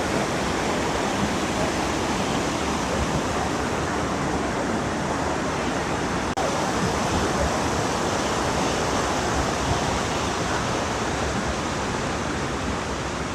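Steady rush of mountain creek water tumbling over rocks, with a brief break about six seconds in.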